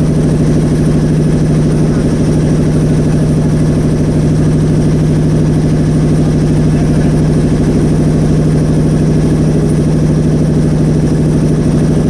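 Engine of a motorised river boat running steadily at a constant speed, loud and unchanging, with a strong low hum.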